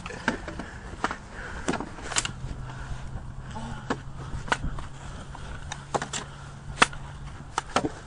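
Toy swords clacking against each other and against a round shield in a mock sword fight: about a dozen sharp knocks, spaced irregularly. A low steady hum runs through the middle.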